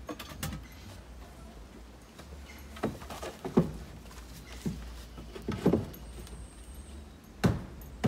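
Wooden boards being handled and fitted against a wooden platform: a handful of short, separate knocks and bumps spread over several seconds, the last the loudest.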